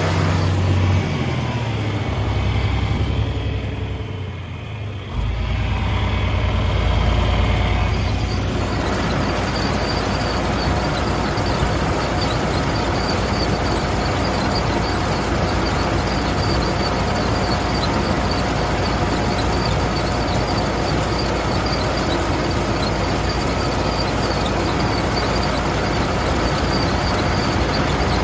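Farm tractor running under way. The engine sound dips briefly, then grows louder at about five seconds in and holds steady.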